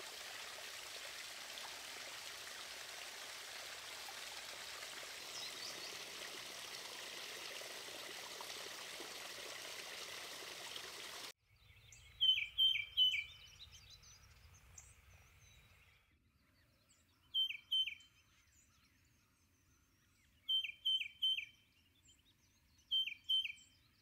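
Water trickling steadily over the rocks of a small backyard creek. About eleven seconds in it cuts off abruptly, and a tufted titmouse sings short phrases of two to four quick, clear, high notes, four phrases a few seconds apart.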